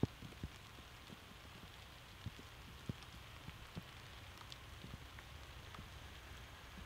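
Light rain falling, with scattered single drops tapping close by, and a faint steady low rumble underneath.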